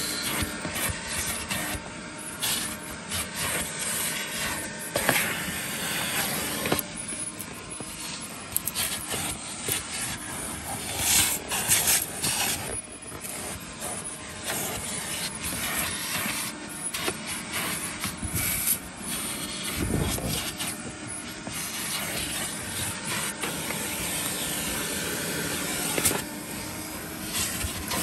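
1969 Electrolux Model 1205 vacuum cleaner running, its crevice tool scraping and rubbing across car carpet. The suction hiss rises and falls irregularly as the nozzle is pushed along and pressed into the carpet.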